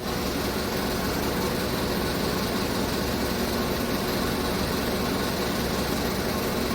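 2015 Chevrolet Tahoe V8 idling steadily while a misfire (code P0300) is being traced across its cylinders after a spark-plug swap.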